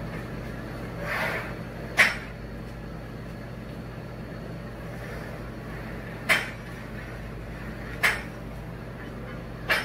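Smith machine bar clacking in its guide rails as it is pressed overhead and lowered: four sharp clacks a few seconds apart, the first about two seconds in, over a steady low hum.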